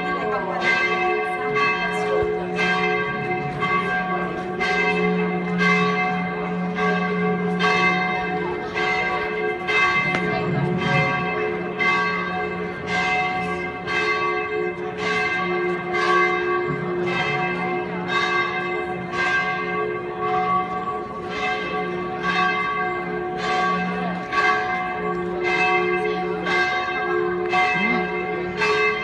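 Church bells ringing in a steady peal, about two strokes a second, over a lasting hum.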